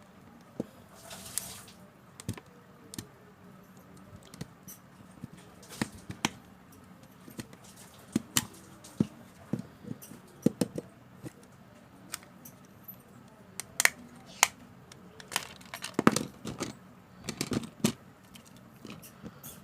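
Irregular small clicks, taps and knocks of a plastic keypad mobile phone and small tools being handled as the phone is taken apart. The clicks come more often near the end.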